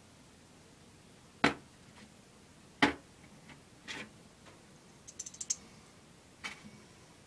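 Small metal parts knocking and clicking as the screws of a small-engine carburetor cover are put in by hand: two sharp knocks in the first three seconds, a softer one, then a quick cluster of light ticks and one more click near the end.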